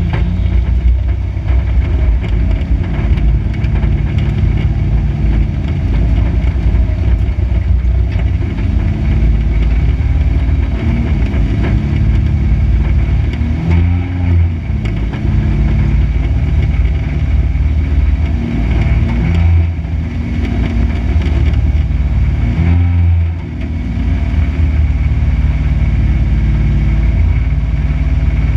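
Dirt-track race car's engine running at low revs, heard from inside the stripped, caged cabin, a loud steady rumble with brief changes in revs about 14, 19 and 23 seconds in.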